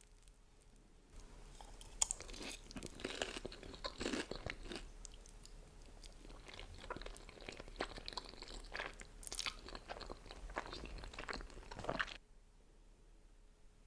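Close-miked chewing and crunching of food, many small crisp bites and mouth sounds. It starts about a second in and stops shortly before the end.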